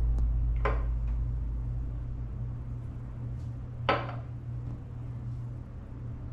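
Music fading out over the first couple of seconds, then a low steady hum with two brief knocks about three seconds apart, of hard objects being handled on a hard surface.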